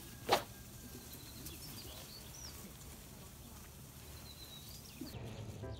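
Outdoor ambience with small birds chirping now and then, and one brief rustling swish of tent fabric about a third of a second in as a nylon tent is rolled up on its ground sheet.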